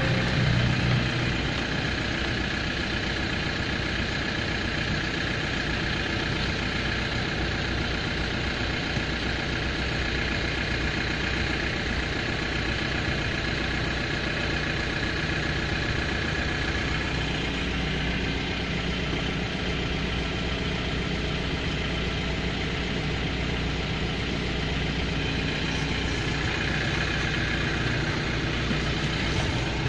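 Car engine idling steadily, heard from inside the car's cabin.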